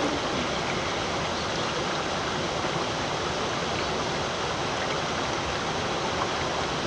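Steady rushing of creek water flowing over rock.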